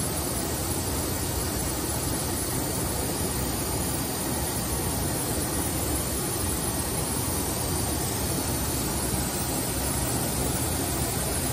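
Steady machine-shop background noise, an even mechanical hum and hiss with no distinct clicks or impacts.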